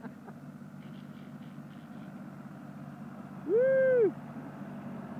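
John Deere 4310 compact tractor's diesel engine running steadily as the tractor drives past. About three and a half seconds in, a single loud hoot, rising and falling in pitch, lasts about half a second.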